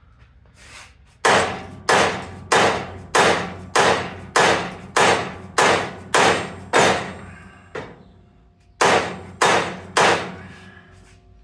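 Hammer blows on the steel rear-axle and suspension hardware of a 1960 GMC truck, to knock a stuck part loose. About ten sharp metal-on-metal strikes come at roughly two a second, then after a short pause three more, each ringing briefly.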